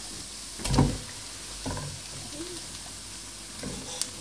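A few dull thumps and knocks as mashed potato is scraped and tapped off a silicone spatula from a bowl into a pot, the loudest about a second in and a sharp click near the end, over a faint steady sizzle of shallots in butter.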